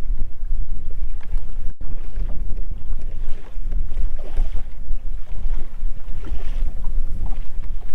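Wind buffeting the microphone in a loud, fluttering low rumble, with choppy lake water lapping at a boat's hull underneath. The sound drops out for an instant about two seconds in.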